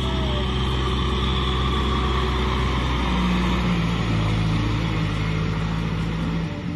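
Kubota M6040SU tractor's diesel engine working under load as it drives a rotary tiller through a flooded rice paddy. The engine note shifts about three seconds in, and its deepest part drops away near the end.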